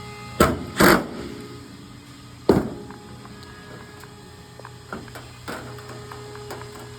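A few sharp knocks and clunks from handling the tanning bed's ballast and its wire connectors: two close together about half a second in, a third about two and a half seconds in, then fainter taps later.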